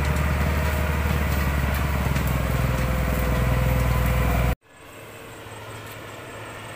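Engine of a modified log-hauling truck running steadily with a deep, loud note. About four and a half seconds in it cuts off suddenly, giving way to a much fainter, steady engine hum.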